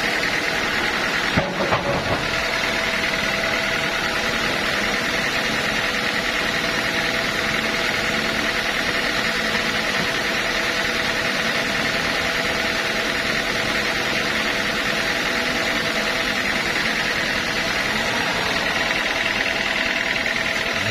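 Sawmill machinery running steadily, a constant mechanical hum and whine, with a few clicks about a second and a half in.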